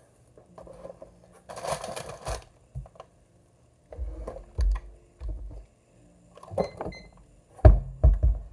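Handling noises of a snack package and the phone: a short crinkly rustle about two seconds in, then dull bumps, and a run of clicks and thumps near the end, the loudest thump shortly before the end.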